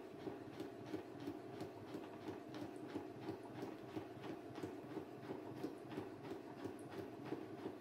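Household electric sewing machine stitching slowly, its motor humming steadily under a regular ticking of the unthreaded needle punching through a sheet of paper, a few stitches a second.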